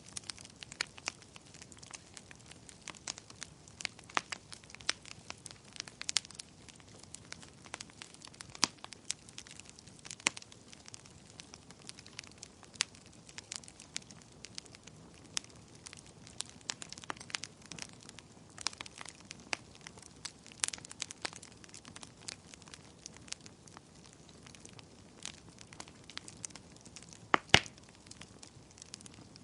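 Wood fire in a fireplace crackling, with frequent irregular sharp pops over a soft hiss of burning, and a couple of louder pops near the end.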